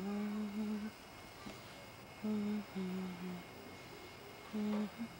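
A person humming a tune in a few short held notes, the pitch stepping down and back up between them.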